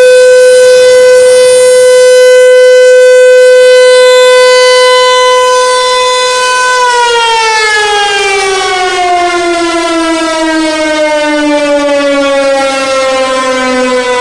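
American Signal Tempest 135 AC/DC outdoor warning siren sounding a loud, steady tone, then about seven seconds in it begins winding down, its pitch falling smoothly as the rotor slows at the end of the test.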